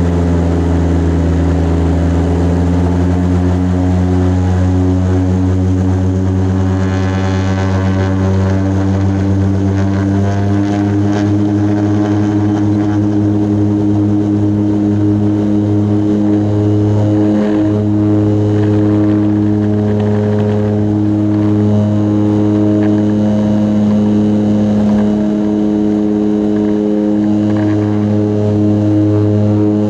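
Turboprop engine and propeller of a small aircraft, heard from inside the cabin on the takeoff run: a steady drone whose pitch rises slightly a few seconds in as power comes up, then holds.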